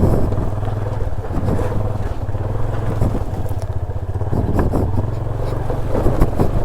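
Motorcycle engine running steadily as the bike is ridden over a rough unpaved track, with scattered knocks and rattles.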